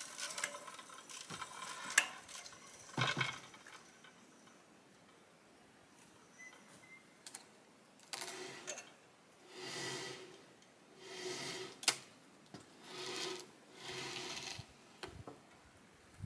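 Wooden boards of a strapped lumber bundle knocking and scraping as it is handled and rigged on a zip line: a few sharp knocks early, then in the second half a run of short rattling scrapes about every second and a half, with one sharp knock among them.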